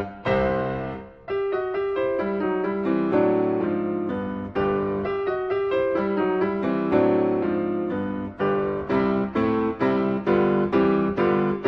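Piano music, a continuous run of struck notes with a brief dip about a second in.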